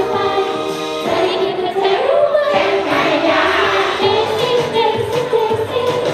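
Upbeat idol pop song through a stage PA, with a group of female voices singing together over the backing track.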